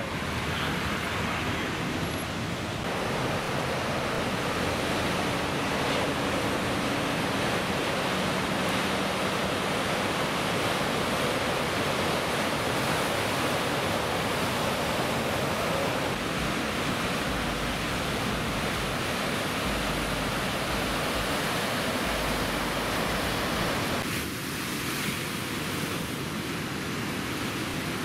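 Steady rush of heavy ocean surf breaking and churning, with a car passing on a road in the first couple of seconds.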